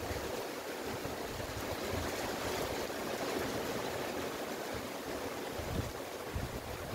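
Steady rain falling on trees and bushes, with gusts of wind rumbling now and then.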